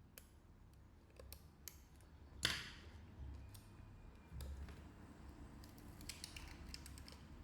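Small clicks and scrapes of a broken smartphone screen being pried and peeled off the phone's frame, with one sharper crack about two and a half seconds in.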